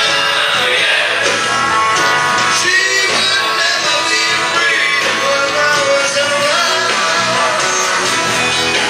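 A live band playing rock music with electric guitars and a singing voice, loud and steady.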